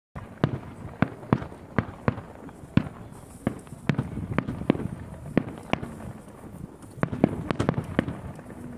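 Aerial fireworks shells bursting: an irregular series of sharp bangs, about two or three a second.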